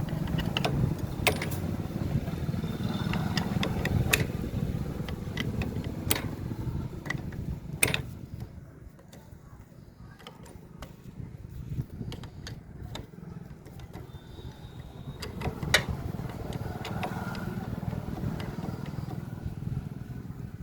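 Scattered sharp metallic clicks and clinks of hand tools, such as a socket wrench and loose bolts, as a motorcycle's clutch cover is being taken off. They sound over a steady low rumble that fades about eight seconds in and comes back in the last five seconds.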